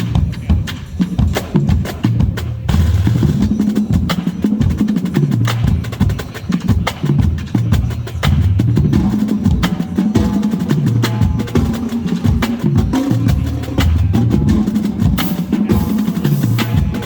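Marching drumline playing: rapid, crisp snare drum strokes over tuned bass drums stepping up and down through a pitched pattern, loud and continuous.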